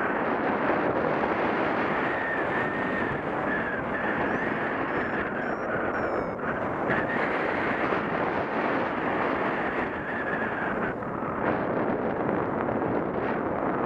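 Steady rush of in-flight airflow buffeting the action camera's microphone during a paraglider flight. A thin, slightly wavering whistle runs through it and stops about eleven seconds in.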